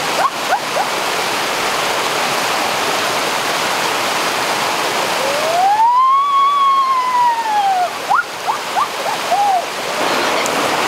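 Water rushing steadily over rocks in a small cascading stream. About five seconds in, a long exclamation of astonishment rises and then falls in pitch for about two and a half seconds, with a few short upward-sliding sounds near the start and just after it.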